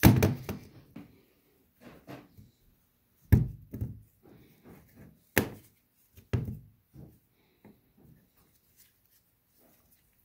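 Metal parts of a Haldex tractor protection valve knocking and clacking against a metal workbench as they are handled and set down: a handful of sharp knocks, the loudest about three and a half, five and a half and six and a half seconds in, with fainter handling taps between.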